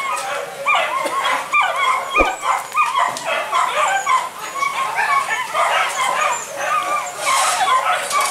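A pack of hunting dogs yelping and whining over one another without a break, many short high cries overlapping, with a single sharp knock about two seconds in.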